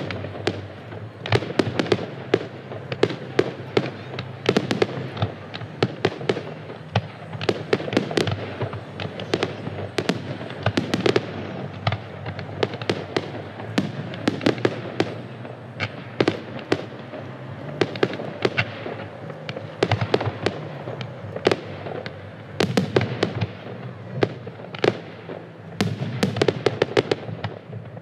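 Fireworks display: a dense, unbroken barrage of sharp bangs from bursting shells, several a second, over a constant rumble.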